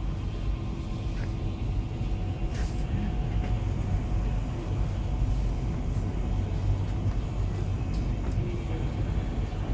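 Cabin noise inside a moving MTR Tuen Ma Line SP1900 ('IKK') electric train: a steady low rumble of the running gear and traction equipment, with a few faint steady tones above it.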